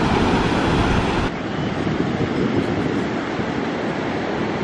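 Ocean surf washing on a sandy beach, mixed with wind buffeting the microphone. About a second in, the sound cuts to a quieter wash of surf and wind.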